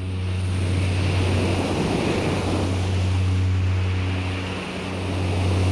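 Self-hypnosis ambient soundscape played from cassette: a steady low drone with a few overtones under a wash of noise like surf that swells, dips about three-quarters of the way through, and swells again.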